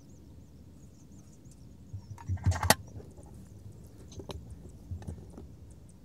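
Handling clatter of frog-catching gear: a quick burst of knocks and rattles about two and a half seconds in, then a few lighter clicks.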